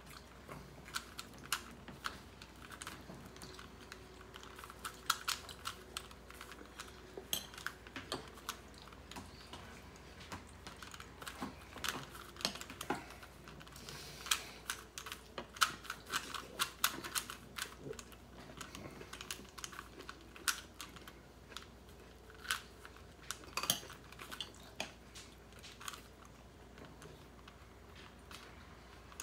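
Plastic Rubik's cube being twisted by hand: irregular clicking of the layers turning, in quick runs with short pauses.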